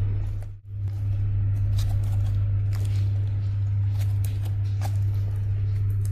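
Soft slime being squished and stretched, giving scattered small pops and clicks over a steady low hum. The sound drops out briefly less than a second in.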